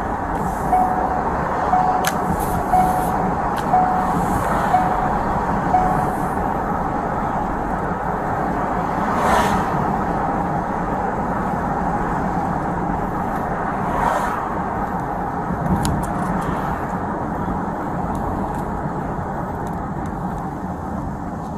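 Steady vehicle noise, with a short, single-pitched electronic beep repeating about once a second for the first six seconds.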